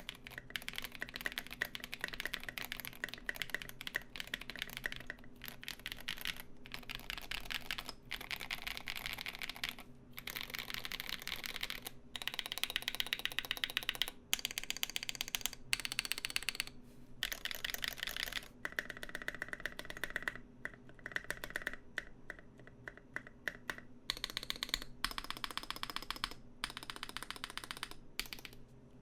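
Typing on a GMMK Pro mechanical keyboard with lubed SP-Star switches, SA keycaps and an aluminium plate: fast runs of key presses with short pauses between them. A faint steady fan hum lies underneath.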